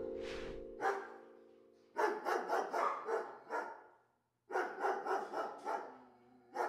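A held musical chord fades out, then a dog barks in two quick runs of barks, with one more bark near the end.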